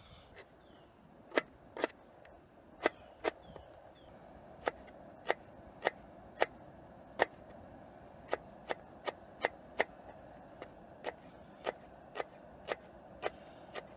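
An Opinel knife chopping green onions on a cutting board: a series of sharp single knocks as the blade strikes the board. They begin about a second in and settle to roughly two a second.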